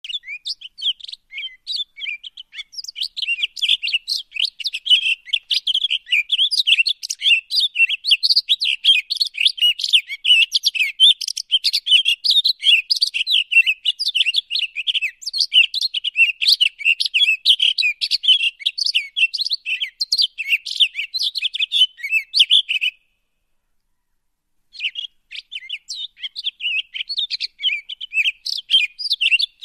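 Many small birds chirping and twittering at once, a dense, continuous chorus of short high calls, broken by about two seconds of silence near the end.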